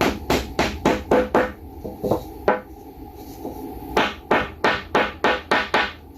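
A hammer tapping on a wooden tapping block, driving glued oak bow-tie keys down into their mortises in a red oak slab. The taps come quickly, about four a second, in two runs with a pause of about a second and a half in the middle.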